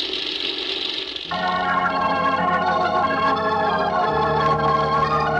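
Organ music: a sustained chord swells in about a second in and holds, moving to a new chord near the end, the way an old radio drama's bridge or theme sounds. Before it, a steady engine-like drone fades under.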